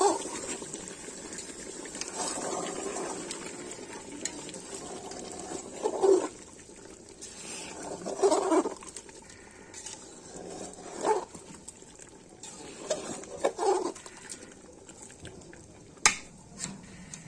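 Ladle stirring chicken curry as it boils in an aluminium pot over a wood fire. Short, loud sounds come every two to three seconds, with a sharp click near the end.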